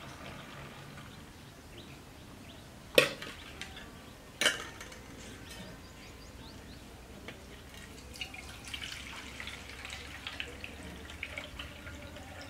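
Steel pots knocking together twice, sharply, about three and four and a half seconds in. Then milk being poured from a steel pot into another steel vessel, a light splashing trickle through the second half.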